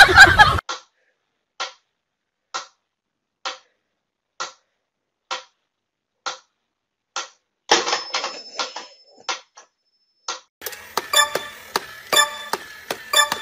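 A mechanical metronome ticking steadily, about one tick a second, eight ticks in all. From about ten seconds in comes rapid clicking with little beeping tones from a battery-powered crawling toy soldier.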